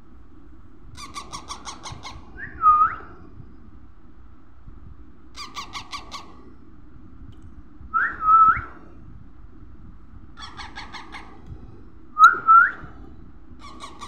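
Green parakeet chick calling while being hand-fed: short runs of rapid chattering pulses alternating with three loud squawks that rise and hook in pitch, the food-begging calls of a young parrot.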